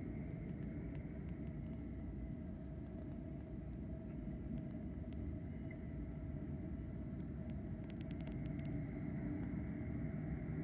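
Steady low rumble of distant traffic and machinery around a city construction site, with a faint steady hum and a few faint ticks about eight seconds in.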